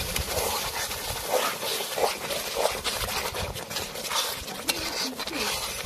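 Metal ladle stirring and scraping thick, bubbling chicken curry masala in a black iron kadai, in repeated strokes, over a steady sizzling hiss.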